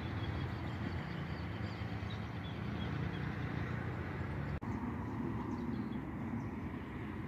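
Riverside outdoor ambience: a steady low rumble with faint bird chirps over it, the background changing abruptly about four and a half seconds in.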